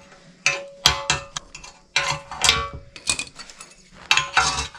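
A steel spanner clinking and rattling against the metal steering centre-pin (idler lever) assembly of a Maruti Omni as it is worked loose by hand, in several short bursts of clanks about half a second in, around two seconds in and near the end.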